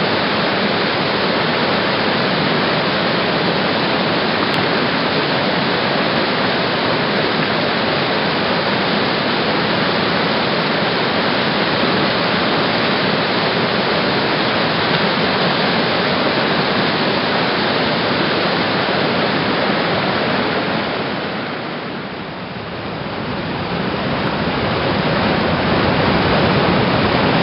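Steady loud rush of whitewater from a tidal rapid's standing wave. About three-quarters of the way through, the rush dips briefly and then returns.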